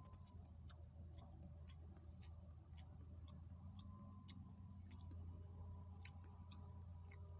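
Insects, crickets or similar, giving a steady high-pitched trill over a low steady rumble, with scattered faint clicks about once or twice a second.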